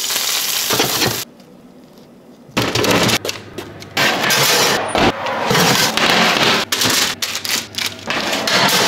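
Grill cheese sticks sizzling in hot oil in a frying pan, stopping abruptly about a second in. After a short quieter gap, loud crackling and crinkling with many sharp clicks follows.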